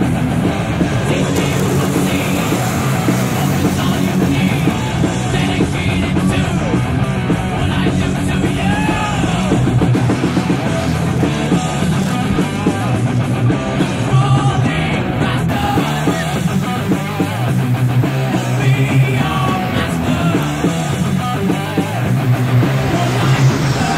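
Loud rock music with singing and a steady driving beat.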